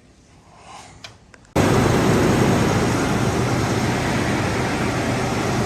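A few faint knocks, then about a second and a half in a 1995 Ford F-150's engine starts sounding abruptly, running steadily at idle with a low hum.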